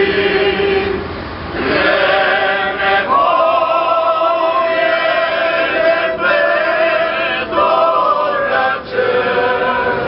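A group of mostly male voices singing a song together, phrase by phrase with short breaths between lines.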